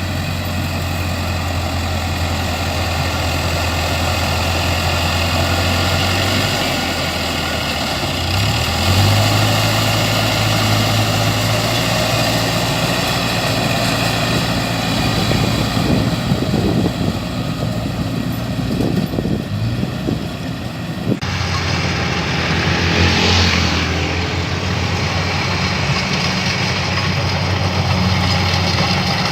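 Combine harvester running steadily: a constant engine hum with machinery noise over it, changing abruptly about 21 seconds in.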